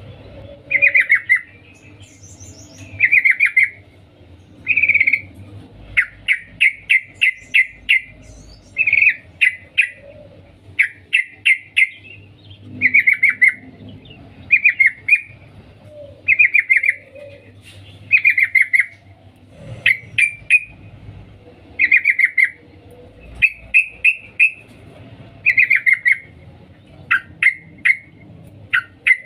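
Yellow-vented bulbul (trucukan), the female calling to a male: short bursts of quick chattering 'cuk cuk' notes, repeated about every one to two seconds.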